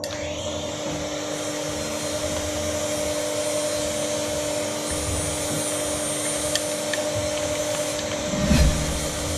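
Macaroni extruder machine running steadily, its electric motor giving a constant hum over a whirring hiss, with a couple of dull low thumps midway and near the end.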